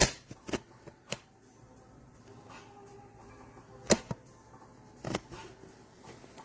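A handful of sharp clicks and knocks at irregular intervals over a faint background. The loudest come right at the start and about four seconds in.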